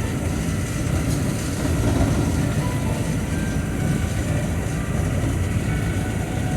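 Steady low rumble of a truck's engine and tyres on a wet highway, heard from inside the cab.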